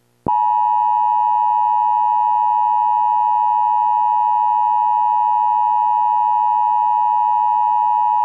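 Emergency Alert System attention tone: one steady, loud electronic tone held unbroken for about eight seconds. It sounds after the activation announcement and before the warning message.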